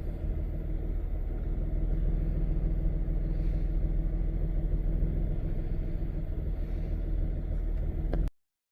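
2006 Nissan Pathfinder's 4.0-litre V6 engine idling steadily with a low, even rumble, cutting off abruptly near the end.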